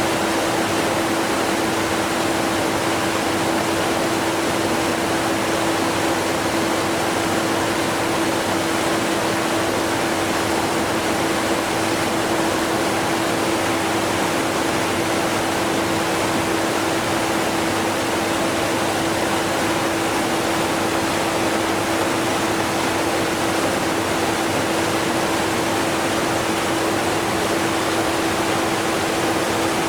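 A strong waterfall rushing steadily, mixed with a vacuum cleaner running underneath, which is barely audible. A steady hum holds one pitch throughout.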